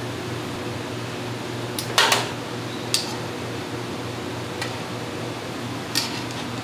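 Steady hum of a kitchen fan, with a few sharp clinks of metal tongs and a frying pan while beef and onions are served onto bowls; the loudest clinks come about two seconds in.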